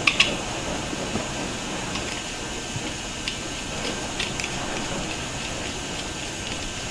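Steady background hiss, with a few light metallic clicks as a die grinder is handled by hand: a small cluster just after the start and single ticks about three and four seconds in.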